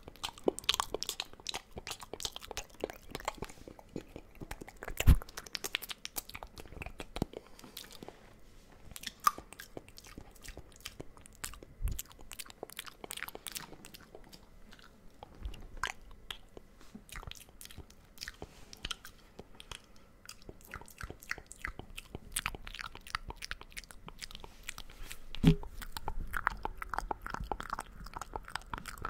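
Close-up wet mouth sounds at the microphone: rapid clicks and smacks of lips and tongue, with a few louder knocks, the loudest about five seconds in and again near the end.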